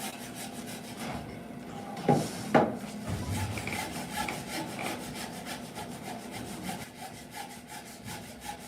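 Japanese hand saw cutting across the grain of a timber beam in quick, even strokes, the start of the cross cut for a kanawa tsugi scarf joint. Two sharp wooden knocks come a little over two seconds in, before the steady sawing settles in.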